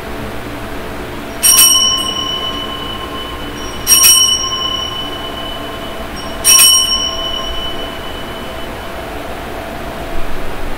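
Altar bell struck three times about two and a half seconds apart, each strike ringing on clearly before fading, marking the elevation of the consecrated host at Mass.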